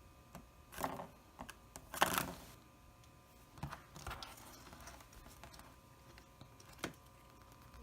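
Small plastic toy parts, a spinning top and its little figures, clicking and tapping as they are handled: a few scattered light clicks, the loudest about two seconds in.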